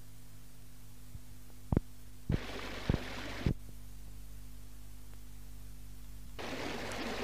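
Steady low hum with four dull low thumps, each about half a second after the last, a hiss between the later ones. Near the end a broad rushing noise comes in.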